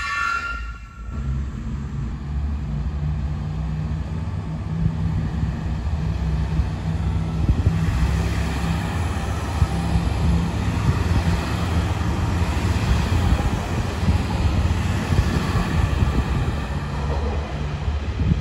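A BR 642 Desiro Classic diesel multiple unit passing, its diesel engines giving a low, steady drone. At the very start there is a brief high wheel squeal from passing freight wagons, which cuts off.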